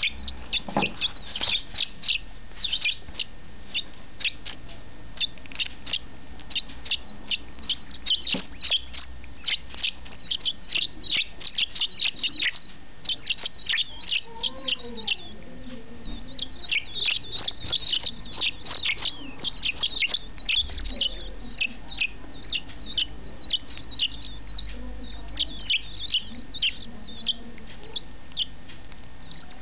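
European goldfinch chick begging to be fed: a steady stream of rapid, high-pitched chirps with brief gaps.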